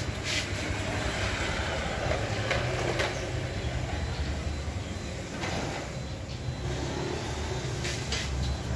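Motor traffic passing by: a steady low engine rumble that swells and fades as vehicles go past, twice.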